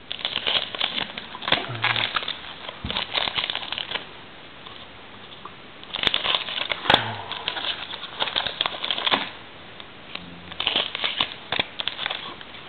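Trading-card pack wrappers crinkling as the packs are cut open and handled, in three spells with a few sharp clicks between them.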